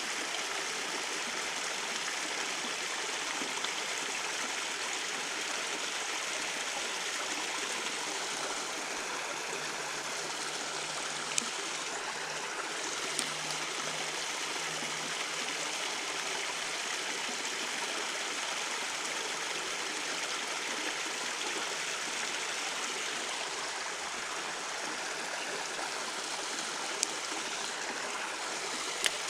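Creek water running steadily, an even rushing trickle with no letup. A few brief sharp clicks stand out over it.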